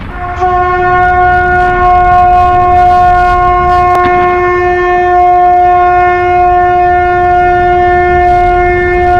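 A conch shell (shankh) blown in one long, steady note that starts about half a second in and is held without a break.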